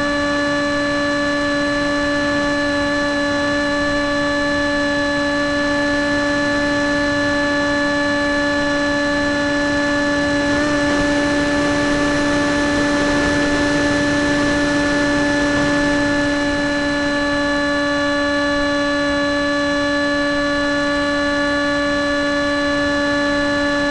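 Model airplane's motor and propeller running at a steady speed, a constant whine picked up by a keychain camera on board. A rush of wind noise grows louder about ten seconds in and fades again by about sixteen seconds.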